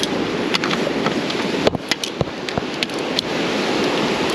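Surf washing against the jetty rocks, with wind on the microphone, as a steady rushing noise. Over it, a scatter of sharp clicks and taps from about half a second to three seconds in.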